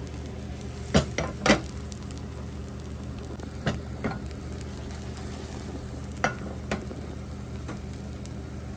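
Beaten egg frying as a thin omelette in a nonstick pan, sizzling over a steady low hum. Sharp clicks or taps come in small clusters: three in the first couple of seconds, two in the middle, two near the end.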